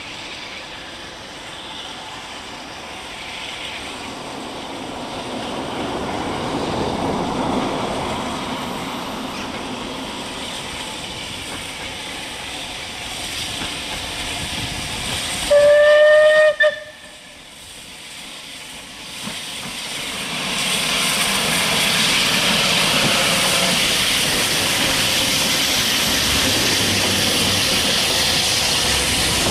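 A steam locomotive hauling a passenger train draws near, then sounds its whistle once for about a second, midway through; the whistle rises slightly in pitch and is the loudest sound. It then passes close by with a steady rush of steam and the noise of the coaches on the rails.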